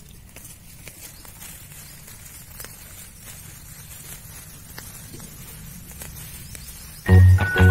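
Faint rustling and soft scuffs as a hand pushes through red amaranth leaves and touches the garden soil, over a low steady rumble. Music starts abruptly near the end.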